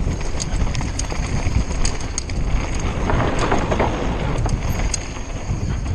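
Conway WME mountain bike ridden down a dirt downhill trail, heard from its mounted action camera: the tyres rumble over the ground and the chain and bike parts rattle with many sharp clicks, growing harsher for a moment about three seconds in.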